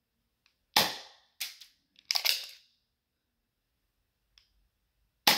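Spring-powered Derringer airsoft pistol firing: three sharp snaps, the last near the end, with fainter clicks between.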